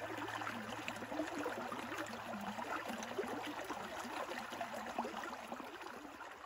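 Shallow stream running over rocks, a steady rush and ripple of water that fades out near the end.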